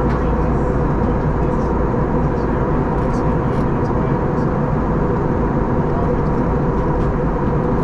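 Steady cabin noise inside an Airbus A321neo in its climb: an even rush of engine and airflow noise with a faint steady hum.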